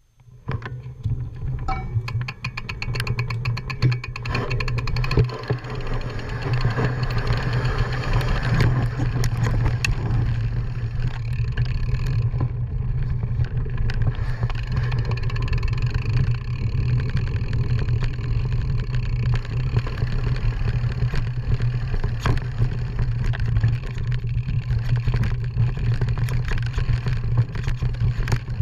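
Mountain bike riding down a rough dirt forest trail, heard from a handlebar-mounted camera: a steady low wind rumble on the microphone with constant rattling and clicking from the bike and tyres over the ground. It starts abruptly and stays loud.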